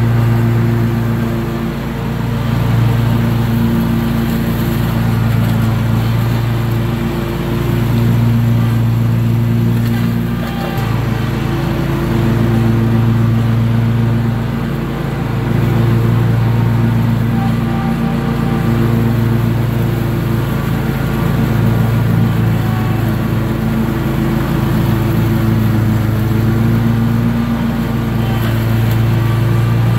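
Toro Z Master 2000 zero-turn mower's 24.5 HP 708cc engine running steadily while cutting grass, its hum swelling and dipping every couple of seconds.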